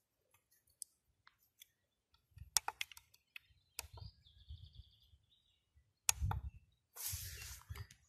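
FM radio receiver being tuned across the band: short fragments of station audio broken by clicks and gaps, with a brief burst of hiss about seven seconds in.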